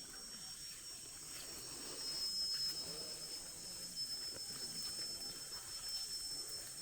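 Steady, high-pitched drone of insects in the forest, with faint scattered rustles beneath it.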